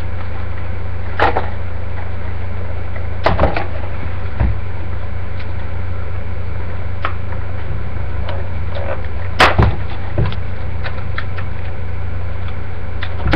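Handling noise from a plastic toy morpher and its cardboard-and-plastic packaging: scattered sharp clicks and knocks, the loudest about nine and a half seconds in. Under them runs a steady low hum.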